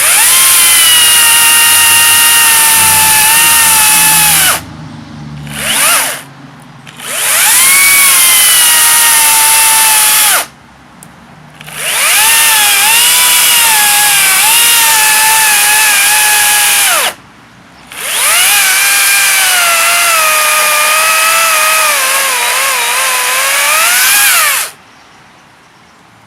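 Makita cordless electric chainsaw's motor whining in four long runs of several seconds each, with short pauses between them and one brief blip of the trigger. The pitch sags and wavers as the motor takes load in the cut, most of all in the last run.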